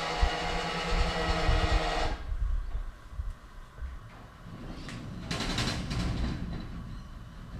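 A steady machine hum with several fixed tones and a low rumble that cuts off abruptly about two seconds in. It gives way to a quieter rumble with a brief rush of noise and a few light clicks.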